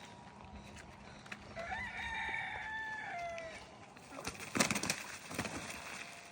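Rooster crowing once, a single crow of about two seconds that dips in pitch at its end, followed a second later by a few sharp clattering knocks.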